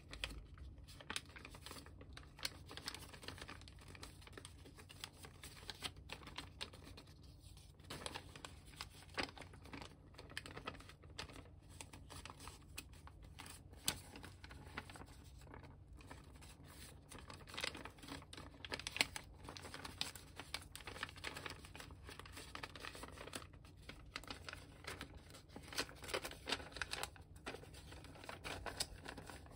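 Origami paper rustling and crinkling as hands fold and crease it, with irregular sharp crackles all through.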